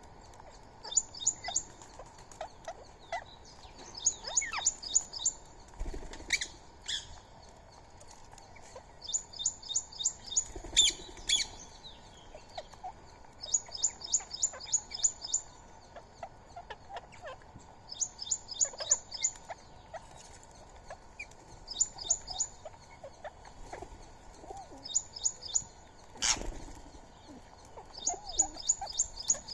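Repeated bursts of rapid, high-pitched chirping calls, each a quick run of six to eight notes, coming every couple of seconds. A few sharp knocks or flaps are heard among them, the loudest near the end.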